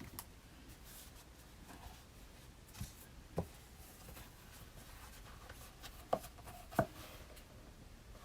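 Desk study sounds: a pen or pencil writing on paper, with faint scratching and small clicks, and four light knocks of things handled on the desk.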